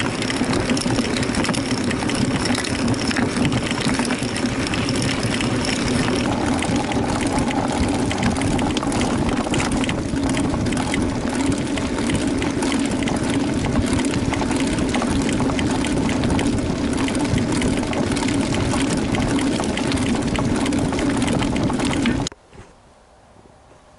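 Knolly Chilcotin mountain bike descending a loose, rocky trail at speed: a steady rush of wind and tyre noise on the low-mounted camera, with constant clatter and rattling as the wheels hit the stones. The sound cuts off abruptly about 22 seconds in.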